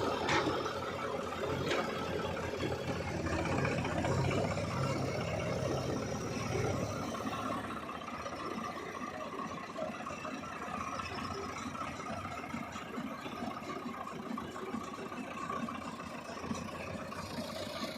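Diesel engine of a backhoe loader or tractor running steadily, louder for the first seven seconds or so, then quieter.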